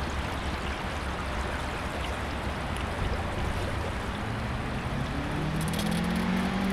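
Water rushing and splashing along the hull of a Zodiac inflatable moving on an electric trolling motor, over a steady low rumble. In the last two seconds a low hum comes in and rises in pitch.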